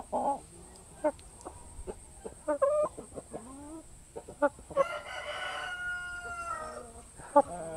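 Aseel-Shamo hens clucking in short, scattered calls, and a rooster crowing once for about two seconds, starting about five seconds in.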